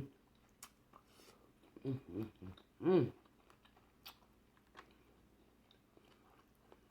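Close-up eating sounds of a person chewing a sauced prawn: soft wet chewing with scattered lip smacks and clicks, and a few short hummed vocal sounds about two and three seconds in.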